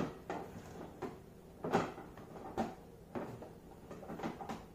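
Plastic disc golf discs being leafed through and slid against each other in a cardboard box: irregular scrapes and light knocks, a handful of separate strokes, the loudest a little under two seconds in.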